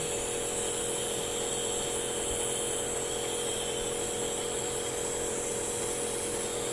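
Compressor nebulizer running, a steady motor hum with a hiss.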